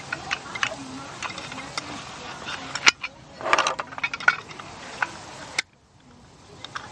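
Small metal parts of a GigaPan panoramic camera mount clicking and scraping as it is taken apart by hand, with scattered light clicks and two sharper clicks, one about three seconds in and one near six seconds.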